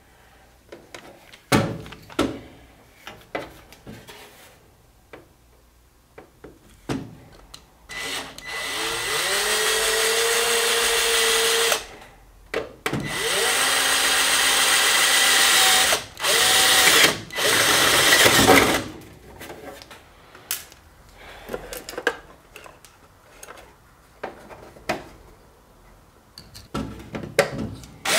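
Ryobi cordless drill running in several bursts, its motor whine rising in pitch as it spins up at the start of each run, with small clicks and knocks of handling between runs.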